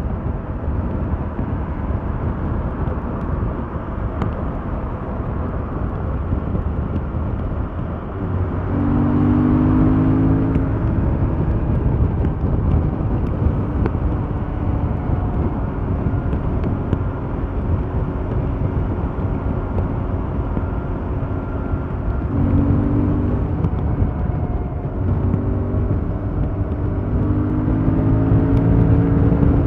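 Yamaha MT-07's 689 cc parallel-twin engine running through its stock exhaust while riding, over steady wind noise. The engine pulls harder with rising pitch about nine seconds in, again a little past the two-thirds mark, and once more near the end.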